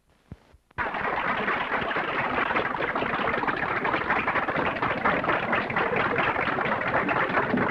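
Audience applauding, a dense steady clatter of many hands clapping that starts suddenly less than a second in, after a brief dropout.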